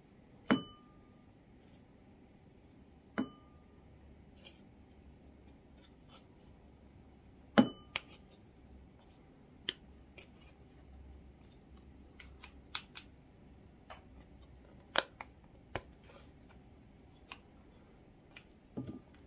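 Wooden craft stick scraping and breaking pressed eyeshadow out of a palette pan: scattered small clicks and scratches. Three louder knocks, about half a second, three seconds and seven and a half seconds in, each ring briefly.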